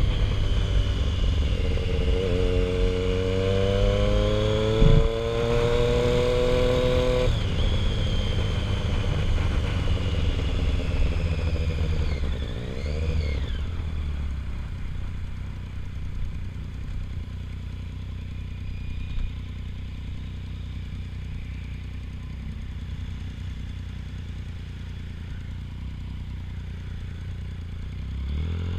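Triumph Street Triple 675R's inline three-cylinder engine pulling up through the revs for about seven seconds, then dropping off and running at lower, steadier revs. It picks up again right at the end.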